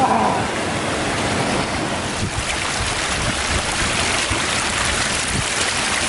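Water rushing over rocks in a fast moorland stream, a steady hiss, with wind buffeting the microphone.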